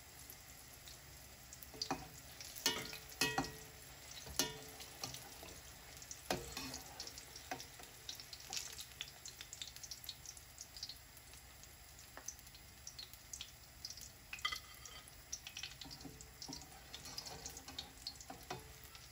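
Brinjal strips deep-frying in oil in a black enamel pan, a steady crackling sizzle. Over it come sharp knocks and scrapes of a metal slotted spoon against the pan as the fried pieces are lifted out, the loudest a cluster about two to four seconds in.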